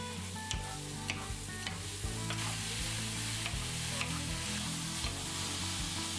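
Sliced shiitake mushrooms sizzling in a hot oiled pan as they are stirred and tossed with wooden utensils. The sizzle grows louder about two seconds in. Soft background music plays underneath.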